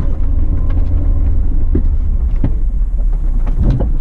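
Suzuki Grand Vitara 2.0's four-cylinder petrol engine and drivetrain rumbling steadily, heard from inside the cabin as it drives slowly over rough dirt, with a few knocks and rattles from the body and suspension over the bumps.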